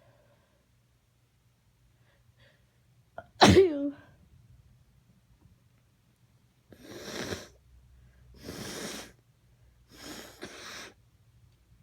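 A person with a cold sneezes once, loudly, about three seconds in, with a quick intake of breath just before. Four noisy nose blows follow in the second half.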